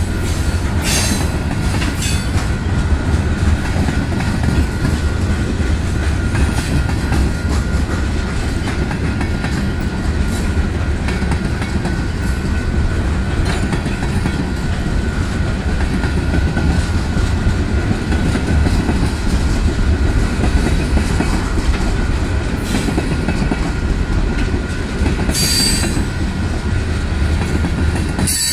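Manifest freight train's covered hopper and tank cars rolling past close by: a steady rumble of steel wheels on the rails with a thin, steady wheel squeal running through it. A few sharp clacks stand out, two of them near the end.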